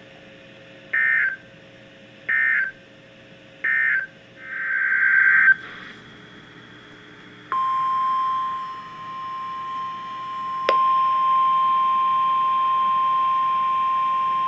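Three short buzzy data bursts about a second apart, the Emergency Alert System end-of-message code closing a NOAA Weather Radio warning, followed by a longer burst that swells up. About seven and a half seconds in, the steady single-pitch NOAA Weather Radio 1050 Hz warning alarm tone starts and holds, with one sharp click about three seconds later.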